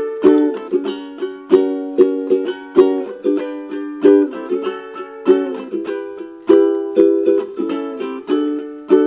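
Acoustic ukulele strummed in a steady rhythm, each strum ringing and decaying, changing chords from D through G and back to D. No singing.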